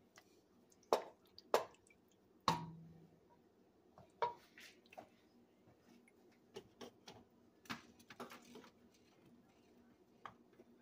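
Metal spoon stirring shell pasta in a thick cream sauce in a metal pot: a few sharp knocks of the spoon against the pot in the first three seconds, one ringing briefly, with wet squishing of the sauce. Fainter clicks and knocks follow later.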